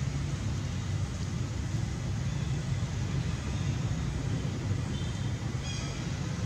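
Steady low outdoor rumble, like distant traffic, with a brief faint high-pitched twitter near the end.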